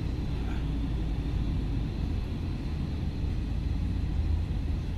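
Steady low rumble of road and engine noise from a car travelling along a busy freeway, heard from inside the car.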